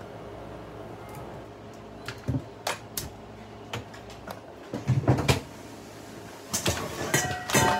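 Kitchen handling noises: a scattered series of knocks and clicks, busier about halfway through and again near the end, as things are moved about on the counter. A few steady tones begin near the end.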